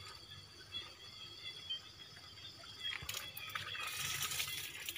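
Faint rustling of plastic mushroom-growing bags, with a few light clicks. From about three seconds in it becomes a louder, hissy crinkling.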